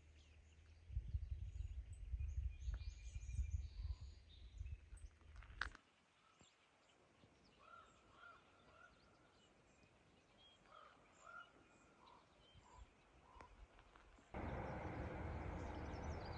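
Faint outdoor sound with scattered short bird calls. A low wind rumble on the microphone runs for the first six seconds. About two seconds before the end a steady rushing noise sets in abruptly.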